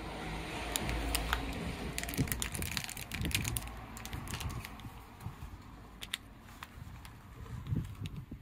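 Clear plastic food wrapper crinkling and crackling as it is handled, in a dense run of sharp crackles over the first few seconds and a few scattered ones later.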